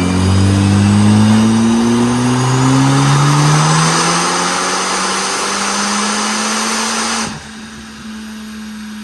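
Tuned Hyundai Veloster turbo engine pulling under load, its note climbing steadily with a brief break about two seconds in, under loud wind and road rush. About seven seconds in the rush drops away abruptly and the engine holds one steady note.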